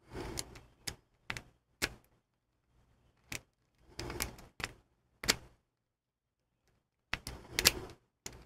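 Lock-picking tools working in the keyway of a small Master Lock No. 7 padlock: irregular sharp metal clicks and short rattling scrapes, in clusters with a pause of about two seconds in the middle.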